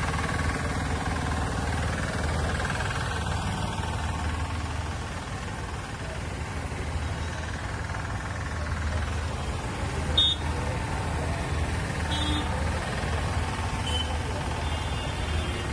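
A large vehicle's engine running steadily with a low throb, and a few short high beeps in the second half.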